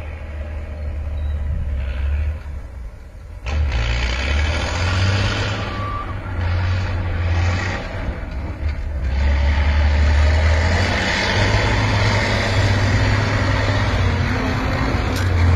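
Heavy engine of a tracked amphibious military transporter running under load as it drives across a sandy field, with a deep steady rumble. It grows louder about three and a half seconds in and again from about ten seconds in as the vehicle comes closer.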